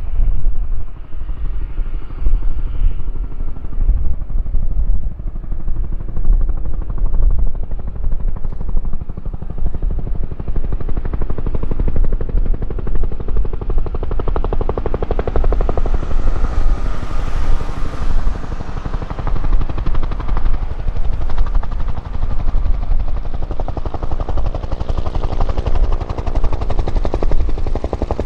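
Bell UH-1 Iroquois 'Huey' helicopter approaching to land: the fast, steady thumping of its two-bladed main rotor over the whine of its single turbine engine. From about the middle on it grows brighter and sharper as it nears.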